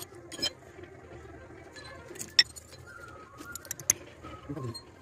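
Hammer tapping the thin steel blade of a small hand-made mason's trowel against a hammer head used as an anvil. The strikes are sharp, metallic and spread out, a handful in all, two of them louder, one in the middle and one about four seconds in.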